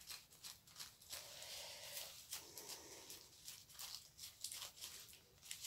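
Faint rustling and crackling of latex-gloved hands rubbing and working together, a run of small irregular crackles with short stretches of scratchy hiss.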